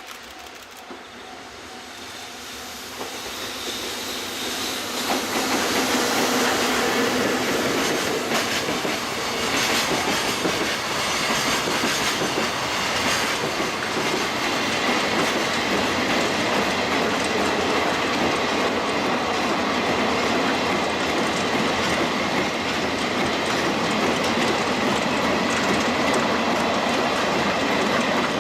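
Freight train hauled by an EF65 1000-series electric locomotive passing at speed: the rumble and clickety-clack of the wagon wheels over the rail joints build over the first five seconds, then run on steadily as the wagons go by.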